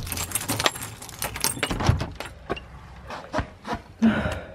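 A bunch of keys on a key ring jangling and clicking against the front door as a key is worked in the lock, with a rapid rattle at first and scattered clicks after. About four seconds in there is a louder burst as the door comes open.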